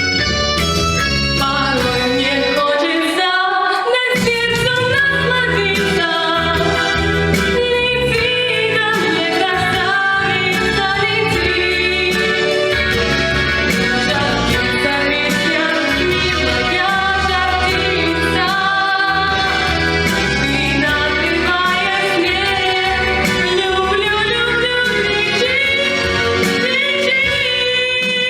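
A female voice singing a melodic song over a full instrumental accompaniment.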